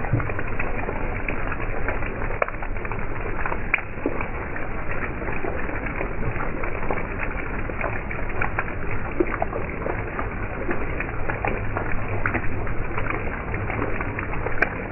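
Heavy rain pouring onto a flooded road: a steady hiss of rainfall with many small splashes of individual drops hitting the standing water.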